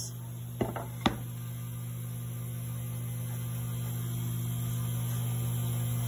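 Festool vacuum clamp's pump running with a steady low hum that slowly grows louder as it holds the panel, with two sharp knocks about half a second and a second in as the board is set on the pad.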